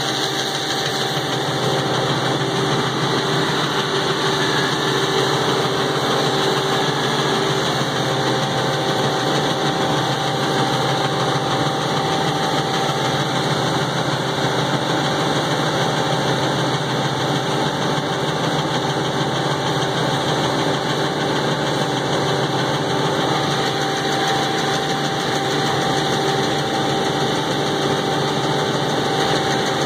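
Packer 750 wood grinder's engine running steadily, with an unchanging hum and whine and no rise or fall in speed.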